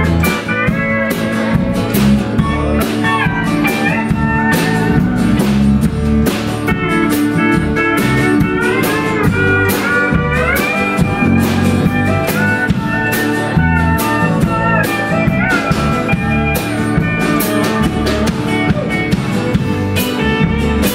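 Live country-blues band playing an instrumental passage: pedal steel guitar, acoustic guitar, electric bass and drums. A lead line slides up and down between notes over a steady beat of about two drum hits a second.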